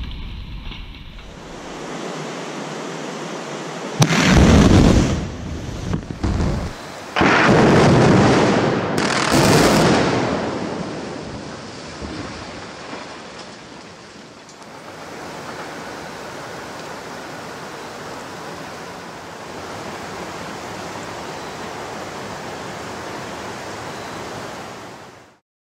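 Explosive demolition charges going off with a sudden crack, then a long rumble as a 180-foot reinforced concrete bridge arch breaks and crashes down into a river, in two loud heavy surges that die away over several seconds. After that, a steady rushing of flowing river water.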